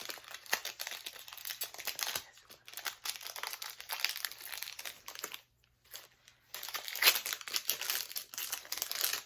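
Foil wrapper of a Pokémon booster pack crinkling as it is torn open and handled, with a second-long pause just past halfway before the crinkling resumes.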